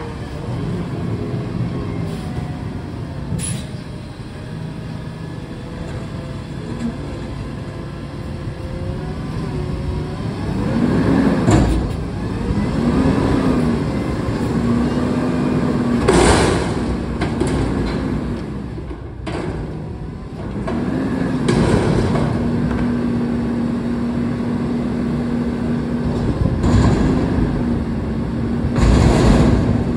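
Front-loader garbage truck's engine running steadily, then revving up and down again and again from about ten seconds in as it powers the hydraulic lift arms at a dumpster. Four short, loud noises cut through, each about a second long.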